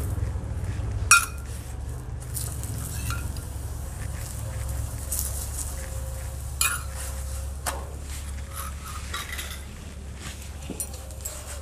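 Metal spoon clinking against a small steel bowl and scraping on an iron tawa as ghee is spread over a paratha, a few sharp clinks with the loudest about a second in, over a low steady rumble.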